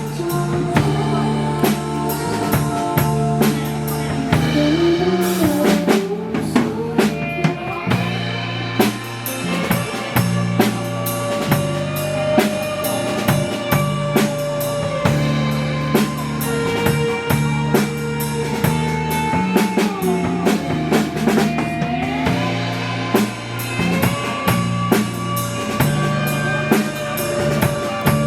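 Live band music: a drum kit plays a steady beat with bass drum, snare and rimshots, under sustained bass notes and a long, held melody line that slides between pitches.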